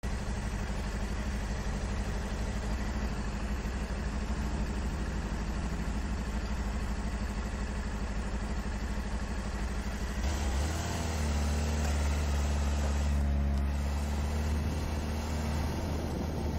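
Sport motorcycle engine idling steadily, heard from the rider's helmet. About ten seconds in the engine note changes and gets louder and deeper as the bike moves off.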